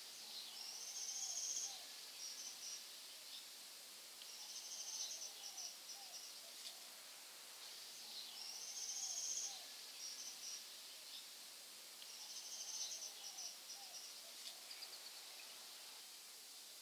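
A songbird repeating the same high trilled phrase about every four seconds, each phrase trailing off into a run of short notes, with softer lower notes in between. A steady high hiss of forest insects runs underneath.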